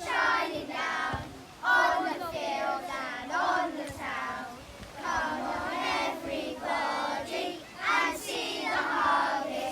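A group of primary-school children singing a song together.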